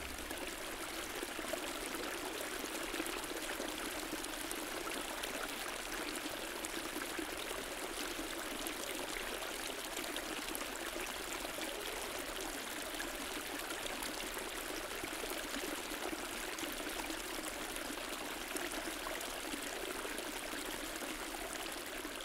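Steady rush of running water, even and unchanging throughout.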